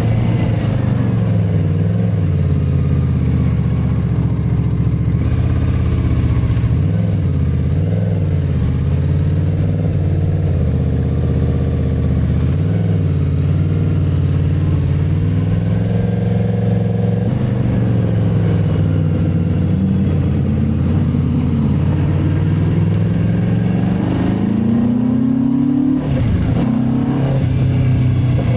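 Benda Dark Flag 500 Commander's V4 engine through its twin exhausts while riding, the pitch rising and falling with the throttle. Near the end it climbs steadily, then drops suddenly as if shifting gear.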